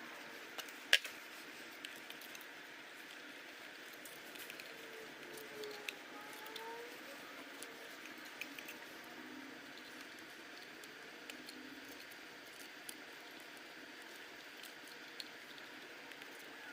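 Light, scattered clicks and taps of small metal engine parts and tools being handled during bench assembly of a model engine, with one sharper click about a second in, over a steady faint hiss.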